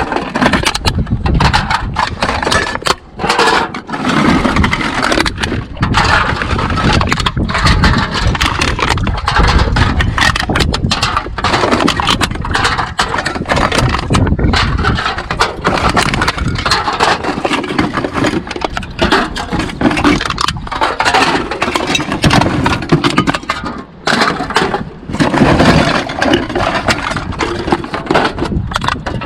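Cans and other recyclables clattering, crinkling and scraping against each other in a continuous, irregular jumble as they are rummaged through and handled.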